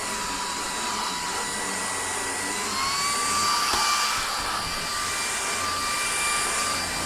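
Cordless stick vacuum running on carpeted steps: a steady high motor whine over the rush of air. About two and a half seconds in, the whine rises slightly in pitch and holds there.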